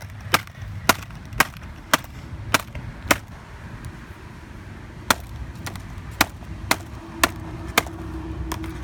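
Sharp, evenly spaced blows on a MacBook keyboard as its keys are knocked out, about two a second, with a pause of about two seconds in the middle. A faint steady hum comes in near the end.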